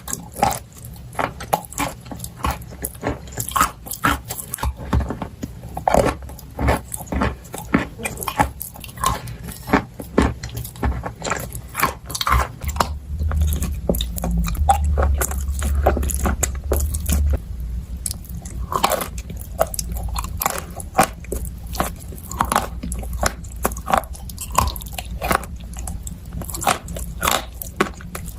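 Close-miked biting and chewing of chalk and clay dipped in clay paste: irregular sharp crunches, one after another, with chewing between the bites.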